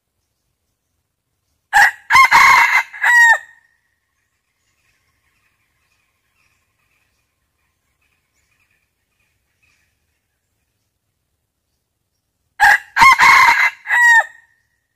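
Red junglefowl rooster crowing twice, about eleven seconds apart, each a short, clipped cock-a-doodle-doo in several parts. This is a male decoy crow of the kind used to call in wild roosters.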